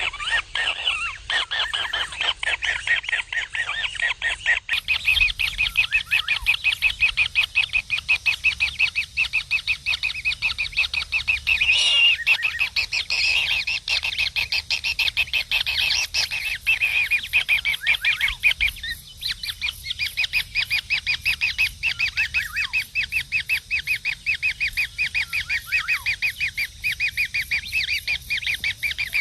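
Kingfisher nestling giving rapid, repeated harsh begging calls, about six short notes a second, kept up without a break.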